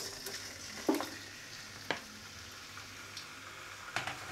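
Raw mutton pieces sizzling in hot oil in a karahi, just added and starting to sear on high heat. A wooden spatula knocks against the pan about a second in, again near two seconds, and near the end.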